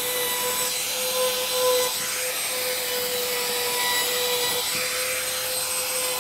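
Compact laminate trim router fitted with a 1/8-inch round-over bit, running steadily at full speed with a high, even whine, easing the freshly cut ends of the deck boards.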